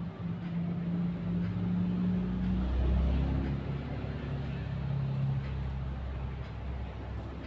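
A motor running with a steady low hum and deep rumble; its pitch drops and the rumble swells about three seconds in.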